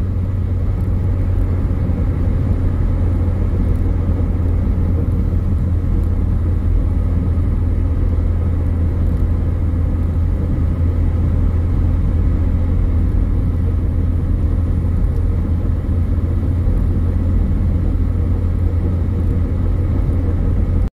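Steady low rumble of a car driving along a road, from its tyres and engine.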